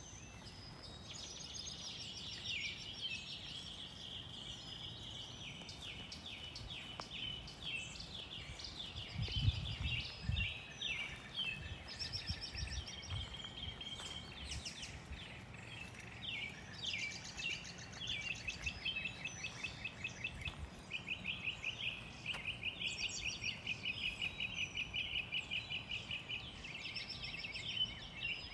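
Songbirds calling, with many overlapping high chirps and rapid trills; a brief low rumble about ten seconds in.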